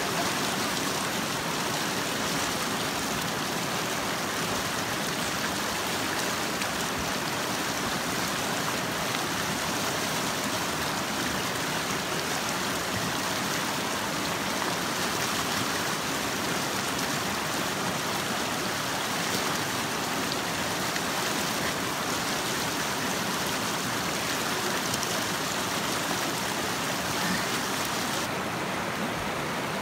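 Mountain river rushing over rocks, a steady even rush of water.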